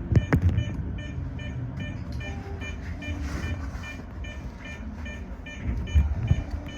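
Toyo Rapid 2000-series electric train running, with a low rumble and a few sharp knocks from the wheels near the start, while an electronic beep repeats evenly about two to three times a second.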